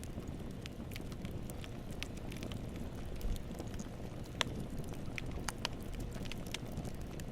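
Wood campfire burning: a steady low rumble of flames with irregular sharp crackles and pops from the burning wood, one louder pop a little past the middle.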